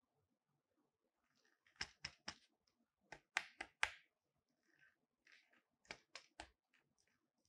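Sharp plastic clicks and knocks from a small tripod phone-clamp mount being handled and adjusted, in three quick groups of three or four clicks, with soft rustling of leather gloves in between.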